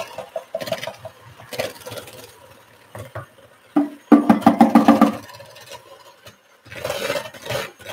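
Electric stand mixer running in short bursts while mixing gingerbread dough, the loudest burst starting about four seconds in and lasting just over a second.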